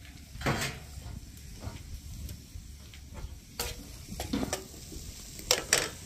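Food sizzling in a hot pan, with a cooking spoon stirring and knocking against the pan about five times, the two loudest knocks close together near the end.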